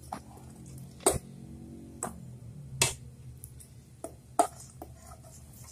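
Sliced onions being tipped and pushed from a metal bowl into a stainless steel pot: a handful of sharp clinks and knocks of metal on metal and the rustle of onions dropping, over a faint low hum.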